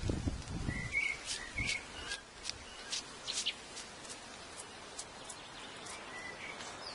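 A few soft strokes of a bee brush sweeping bees off a honey frame in the first second or so, then quiet outdoor background with short high bird chirps and a faint hum of bees.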